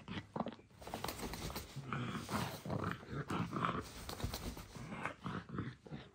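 A pug grunting as it digs and noses into a plush donut dog bed, with scuffling and rustling of the fluffy fabric. The grunting is strongest from about two to four seconds in.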